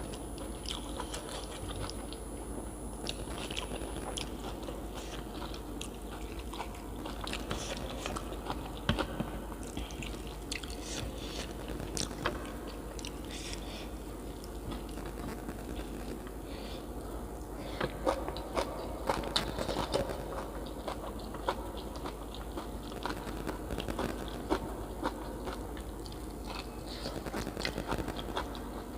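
A person eating close to the microphone, biting and chewing food with many short, sharp mouth clicks, most of them between about eighteen and twenty seconds in.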